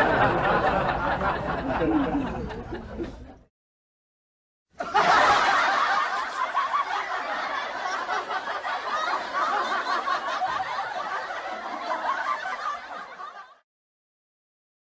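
Two laughter sound effects in turn. The first fades out in the opening few seconds. After about a second of silence, a second, longer burst of laughter runs for about nine seconds and then cuts off.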